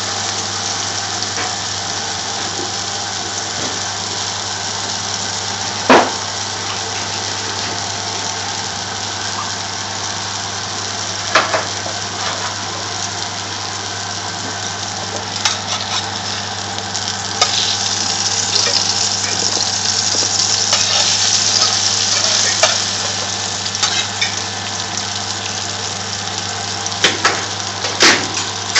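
Lamb-mince shami kebab patties sizzling steadily as they shallow-fry in a little vegetable oil in a frying pan, over a constant low hum. The sizzle grows louder for a few seconds past the middle, and a few sharp clicks stand out, the loudest about six seconds in and two near the end.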